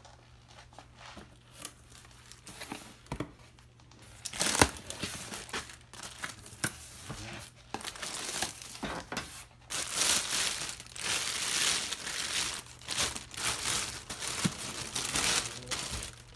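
A cardboard box being opened, with faint scrapes and a sharp rip about four seconds in. Then, through the second half, the clear plastic bag lining the box crinkles steadily as hands pull it open.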